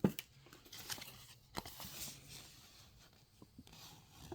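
Faint scattered clicks and light rustling from small objects being handled, with a sharper click at the very start and another about a second and a half in.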